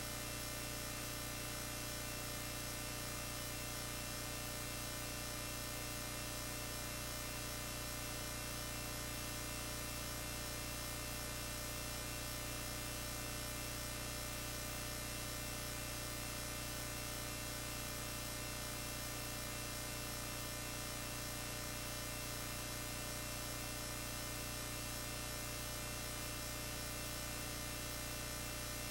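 Steady electrical mains hum with a stack of overtones over a constant hiss, unchanging throughout, with no music or voices.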